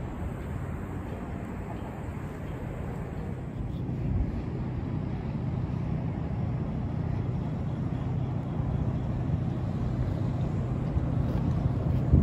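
Steady city traffic rumble with a low hum, growing a little louder about four seconds in.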